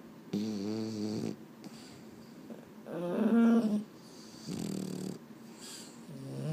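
Boston terrier snoring as it dozes: four pitched, low snores about a second each, coming with its breaths, the third the loudest.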